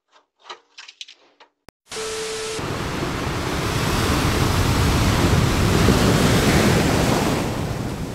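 Storm wind buffeting the microphone over crashing surf: a loud, steady rushing noise that starts suddenly about two seconds in, after a few faint knocks and scuffs.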